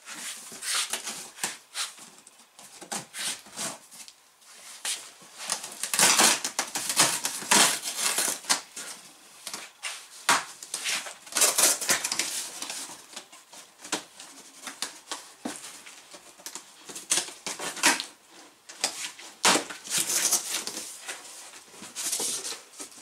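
Large cardboard box being opened by hand: irregular rustling, scraping and crunching as its flaps are pulled open and handled, loudest in stretches about six, eleven and twenty seconds in.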